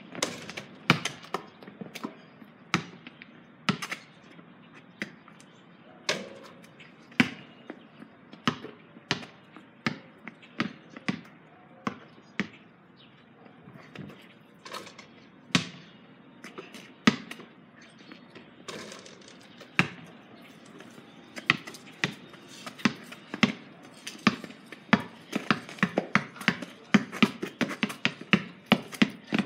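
Basketball bouncing on a paved driveway: scattered single thuds at first, then quick, steady dribbling from about two-thirds of the way through.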